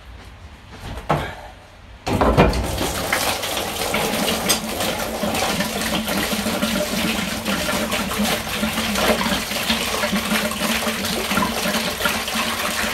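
Engine coolant gushing from a disconnected radiator hose into a plastic drain pan, starting suddenly about two seconds in and running on as a steady splashing pour, after a short knock about a second in.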